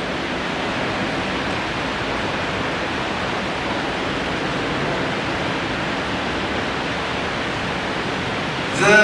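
Steady rushing noise with no voice in it, a pause between recited verses; right at the end, a man's chanted Quran recitation begins again.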